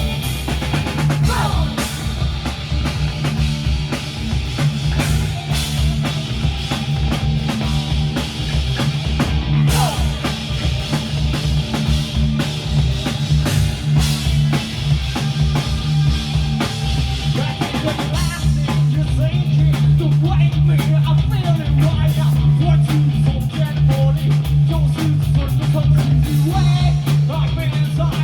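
Live rock band playing a loud instrumental passage with drum kit and guitars. It fills out a little after about eighteen seconds.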